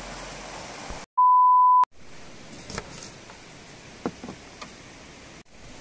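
A loud, steady beep tone at a single pitch, lasting under a second, about a second in, set off by brief silence on either side. After it, a knife slices a red onion on a plastic cutting board, giving a few light knocks of the blade on the board.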